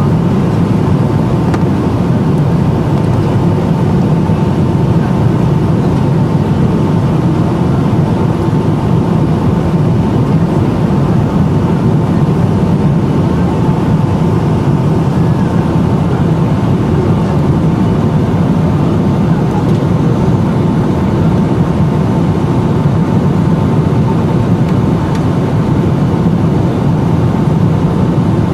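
Steady in-cabin noise aboard a Boeing 757-200 on approach: a continuous low rush of airflow and engine drone with a faint steady whine over it.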